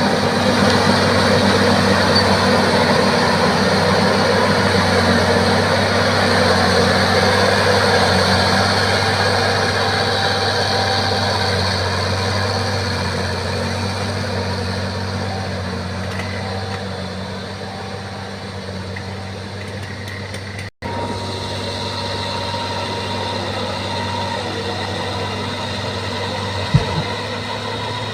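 Bulldozer's heavy diesel engine running steadily, with a low even pitch that eases off slightly over the middle. The sound cuts out for an instant about 21 seconds in, and there is a short knock near the end.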